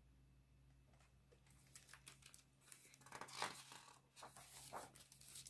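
Pages of a picture book being handled and turned: a run of soft paper rustles and slides that starts about a second and a half in and is loudest past the middle.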